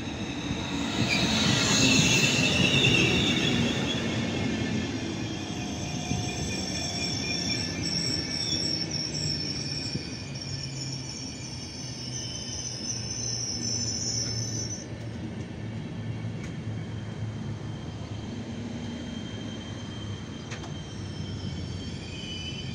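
Electric passenger train, a PKP Intercity Siemens Taurus (EU44 Husarz) locomotive hauling IC coaches, rolling past close by along the platform. It is loudest as the locomotive goes by in the first few seconds, with high-pitched squealing from the wheels and brakes over a steady low rumble; the squeal fades about two-thirds of the way through and comes back near the end as the coaches keep rolling past.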